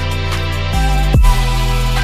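Background electronic music with a deep, sustained bass line and a heavy drum hit just over a second in.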